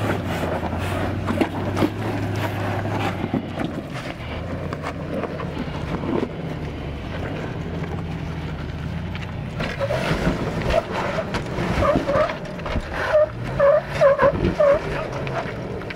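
Off-road truck engine running at low speed while it crawls over rocks, with a run of short high-pitched squeaks in the last few seconds.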